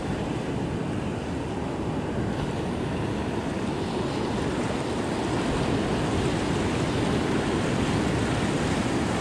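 Steady rushing of ocean surf breaking on a sandy beach, slowly growing louder, with some wind on the microphone.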